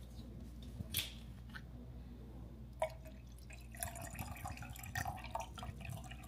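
Two sharp clicks, then from about four seconds in water poured from a plastic water bottle splashes into a clear plastic cup.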